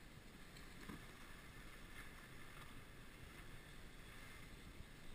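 Faint steady rushing noise of skis sliding on snow and wind passing the moving camera.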